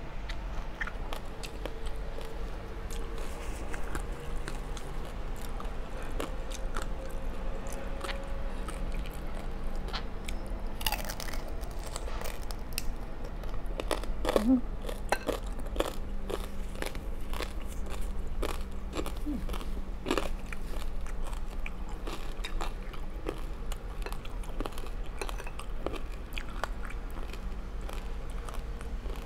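Close-miked eating sounds: wet chewing of noodles, then from about ten seconds in a long run of sharp crunches as crispy roast pork belly crackling is bitten and chewed.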